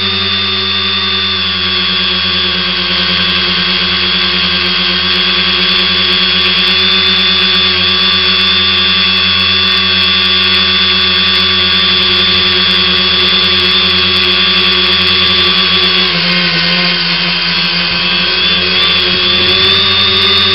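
A tricopter's three electric motors and propellers whining steadily in a hover, heard close up from the craft's own camera. The tone wavers for a few seconds near the end.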